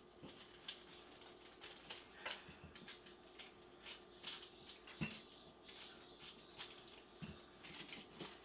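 Wooden rolling pin pressed and rolled over dough sandwiched between sheets of parchment paper: faint paper crinkling and scattered soft clicks and taps, a few of them a little louder.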